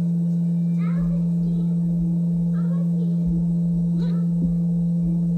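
Vevor electric cream separator's motor running with a steady, even hum.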